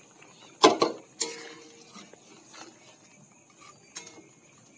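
Metal clanks of a spatula and container knocking against a metal kadai as fried fish are added to the curry: two sharp knocks under a second in, then a third a little later that rings briefly, followed by a few light taps.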